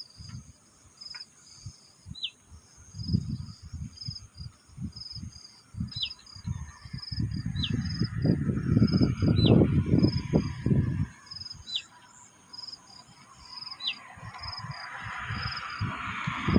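A small bird repeats a short, sharp call that drops in pitch, about once every two seconds, over an insect chirping steadily a few times a second. Low rumbling thumps come and go, loudest about halfway through, and a rushing noise builds near the end.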